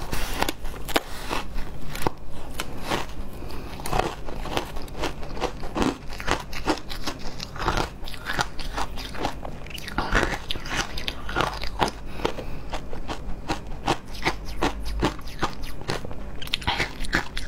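Hard frozen shaved ice being bitten and chewed: a dense, irregular run of crisp crunches and crackles.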